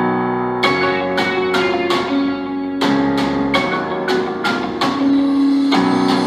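Instrumental music with struck, quickly decaying notes about three a second over held lower notes, played through a Samsung HW-Q70T soundbar as a demo.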